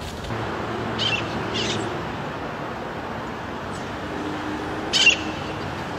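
Steady outdoor city background noise with three short high-pitched chirps: about a second in, again half a second later, and a louder one near the end.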